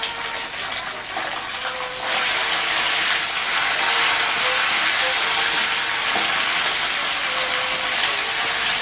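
Canned corned beef sizzling in hot oil in a wok as it is broken up and stirred with a spoon; the sizzle gets louder about two seconds in.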